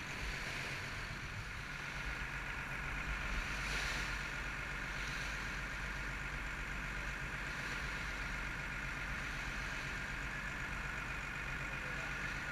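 Fishing boat's engine running steadily underway, a low even drone, with the wash of water from its wake along the hull.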